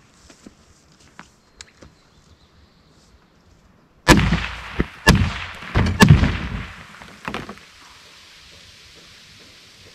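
A quick string of gunshots at soda-filled plastic jugs, starting about four seconds in, with the loudest reports about a second apart and fainter cracks between them. The jugs burst as they are hit. The echo dies away after about seven and a half seconds.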